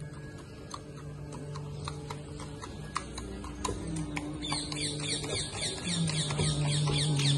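Horse-drawn carriage ride on a paved road: sharp clip-clop clicks of hooves and the carriage. From about halfway, a rapid, even run of high, falling chirps, about four a second, joins in.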